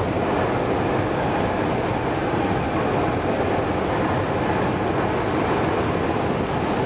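A 1977 KONE inclined elevator car travelling up its inclined track, with a steady, even running noise from the car and its track.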